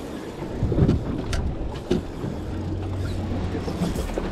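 Wind buffeting the microphone on a fishing boat, a gusty low rumble over water noise, with a few short light clicks.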